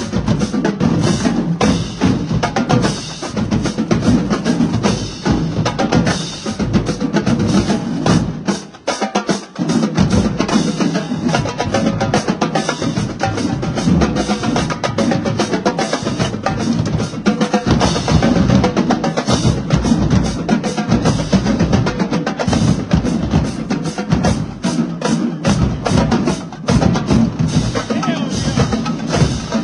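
Marching drumline playing a fast cadence: snare drums over booming bass drums, with crash cymbals. The low drums drop out for about a second around nine seconds in while the stick strikes carry on.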